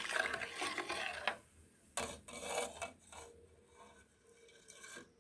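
A spoon scraping and rubbing against a cooking pot in two spells, the first at the start and the second about two seconds in, followed by fainter scraping.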